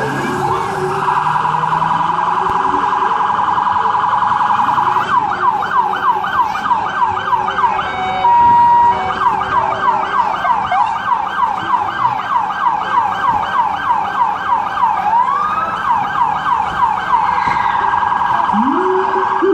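Emergency vehicle siren sounding loudly. It starts as a steady tone, then switches to a fast yelp of rising sweeps, about four a second, broken by a short steady blast about eight seconds in. It slows back to a steady tone near the end.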